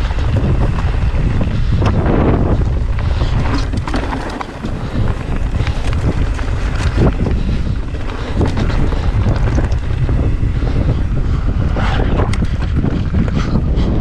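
Strong wind buffeting the microphone in a steady, heavy low rumble, broken by scattered knocks and rattles.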